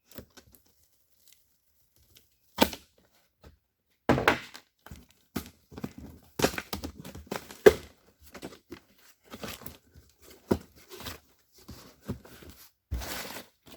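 Cardboard shipping box being opened and unpacked by hand: irregular tearing, crinkling of packing material and cardboard knocks, with a longer tearing noise near the end.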